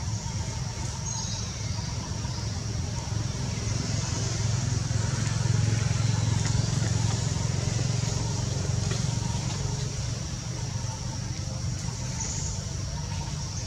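Steady low rumble of outdoor background noise with a faint high hiss above it, swelling a little around the middle.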